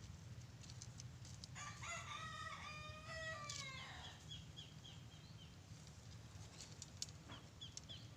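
A rooster crowing once, faintly, a single call of about two and a half seconds starting about a second and a half in. Throughout, a faint high chirp repeats several times a second.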